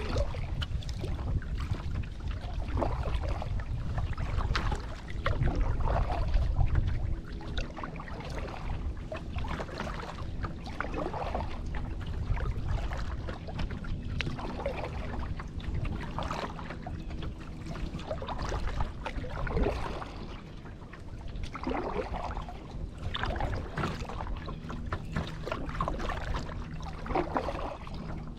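Kayak paddle strokes dipping and splashing in lake water every two to three seconds, over wind buffeting the microphone that is heavier for the first several seconds.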